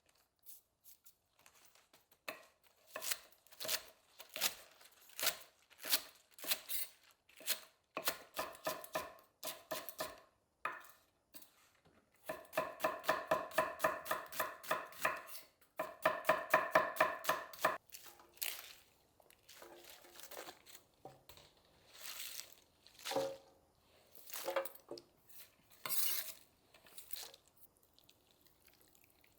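Kitchen knife chopping food on a cutting board. Single strokes come first, then two fast runs of rapid chops about halfway through, then a few scattered knocks of utensils.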